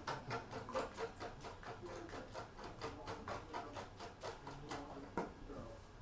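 Cake batter of butter, sugar and eggs being beaten by hand in a bowl: a mixing utensil tapping and scraping against the bowl in a quick, even rhythm of about three to four strokes a second.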